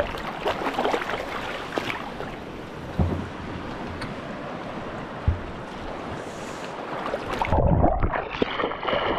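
Seawater sloshing and splashing around a GoPro held at the surface during night spearfishing, with two sharp knocks a couple of seconds apart. Near the end the sound turns suddenly muffled, as when the camera dips under the water.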